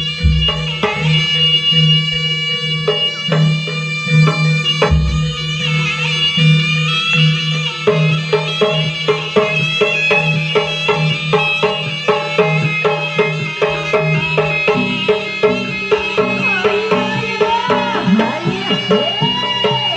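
East Javanese jaranan music played live: a loud, reedy wind melody with sliding notes over a steady rhythm of drums and gamelan percussion.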